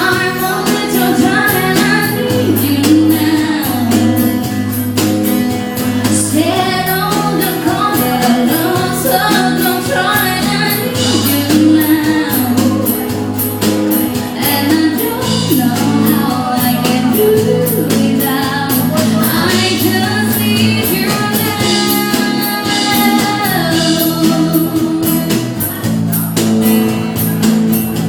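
Ska band playing live: drums keeping a steady beat under bass and guitar, with a singer's voice over them.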